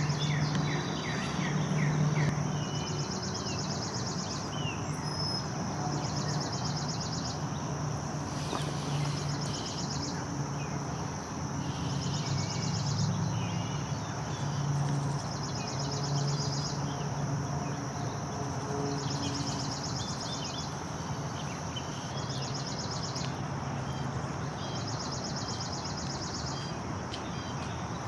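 Outdoor pond ambience: insects trill in repeated pulsing bursts a few seconds long, with scattered short bird chirps over a steady background noise and a low hum that comes and goes.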